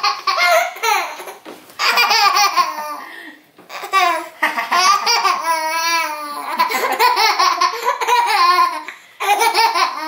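A baby laughing hard in several loud bouts of squealing belly laughs, with short breaks between them, as his face and hands are wiped with a washcloth.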